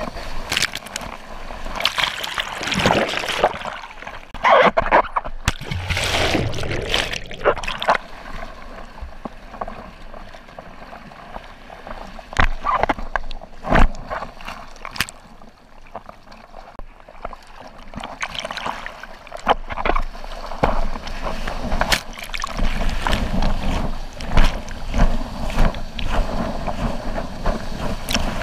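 Sea water rushing and splashing over a GoPro mounted on the nose of a bodyboard in choppy whitewater, with many irregular sharp slaps of spray against the camera housing.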